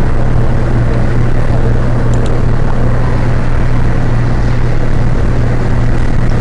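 Steady, loud droning hum with a rushing noise over it, unchanging throughout.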